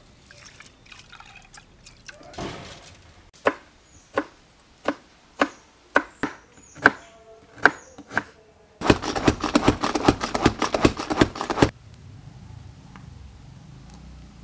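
Kitchen knife chopping ginger on a wooden cutting board: about ten single sharp cuts at an even pace, then a fast run of rapid chopping for about three seconds. Before the chopping, soft splashing of soaked urad dal being rinsed by hand in water.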